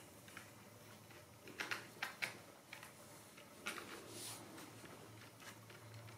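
Faint rustling and scratching of Ragdoll kittens scuffling inside a nylon fabric cat tunnel, with a few short, sharp scratchy rustles through the middle.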